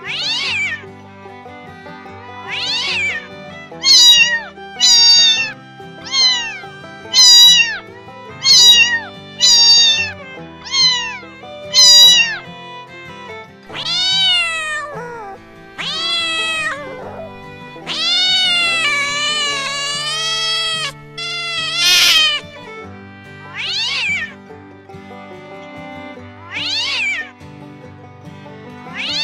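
Domestic cat meowing over and over: short falling meows about one a second for the first dozen seconds, then more spaced out, with one long wavering drawn-out meow about two-thirds of the way through. Background music plays underneath.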